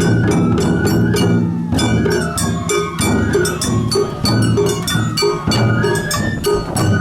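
Japanese festival music: drums and a small metal gong struck in a fast steady beat, about four strikes a second, under a high melody line that steps up and down.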